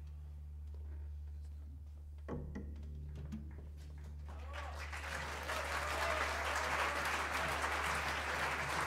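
Audience applause starts about four and a half seconds in and builds to steady clapping. Before it there is a quiet stretch with a low, steady hum and a single knock about two seconds in.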